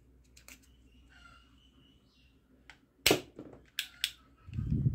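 Yellow plastic toy foam-dart revolver being handled: faint plastic rubbing and small clicks as a foam dart is pushed into the barrel, then one sharp plastic click about three seconds in, followed by two lighter clicks and a dull low thump near the end.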